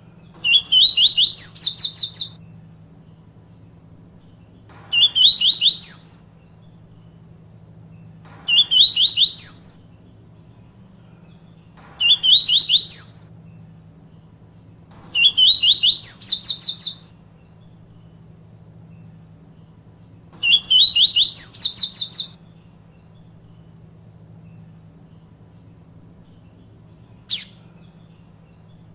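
Papa-capim seedeater singing: six short phrases of rapid repeated high notes climbing in pitch, a few seconds apart, then one short sharp call near the end. A faint steady low hum lies underneath.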